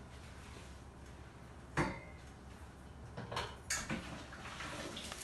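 Dishes and cutlery clinking: one sharp clank nearly two seconds in, then a few lighter clinks a second or so later.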